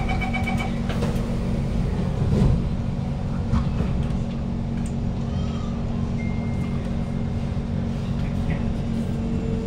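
Inside a stationary Kawasaki C151 metro car: the door-closing chime ends about half a second in, the doors thud shut about two seconds later, then the train's equipment hums steadily while it waits to depart.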